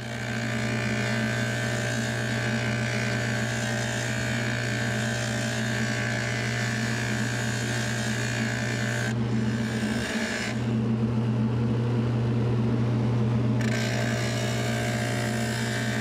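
Motor-driven Guinevere sanding system running steadily, its sanding drum held against the edge of an American holly shell to grind in scallops. A constant motor hum underlies it; the higher sanding noise shifts about nine seconds in, thins out for a few seconds, then returns.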